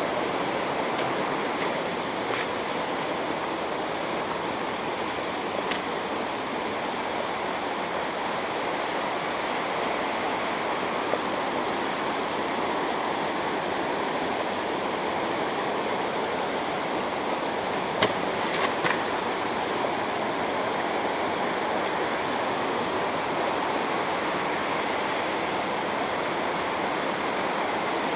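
Fast-flowing stream rushing steadily over rocks. A few sharp clicks stand out above it, the loudest about two thirds of the way through.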